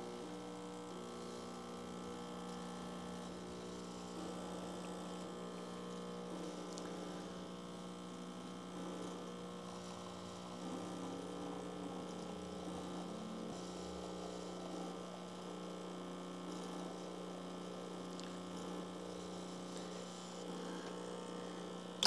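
Lelit Anna 2 espresso machine's vibratory pump humming steadily while pulling an espresso shot, then cutting off suddenly as the brew switch is turned off.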